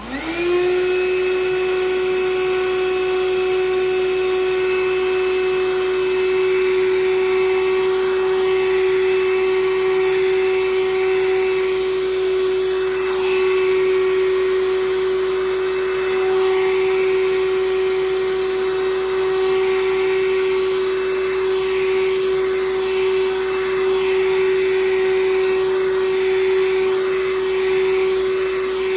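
Black & Decker Dustbuster cordless handheld vacuum switched on, its motor whine spinning up within a second to a steady pitch. It then runs steadily while it sucks up flour.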